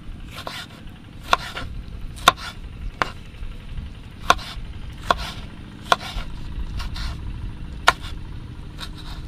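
A knife cutting tomato for sambal. About ten sharp knocks at uneven intervals, over a steady low rumble.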